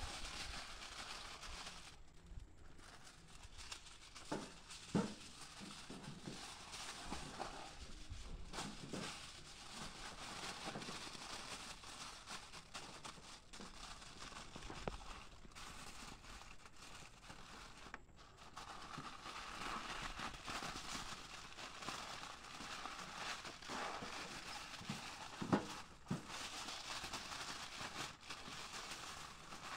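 Aluminium foil crinkling and rustling as it is handled, folded and smoothed flat by hand, with a few sharp knocks, the loudest about five seconds in and another near the end.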